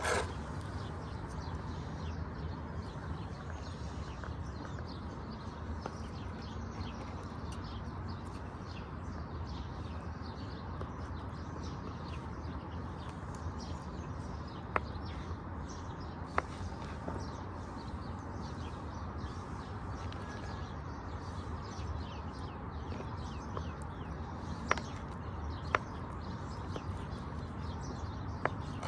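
Birds chirping over a steady outdoor background hiss, with about five sharp clicks or taps scattered through the second half.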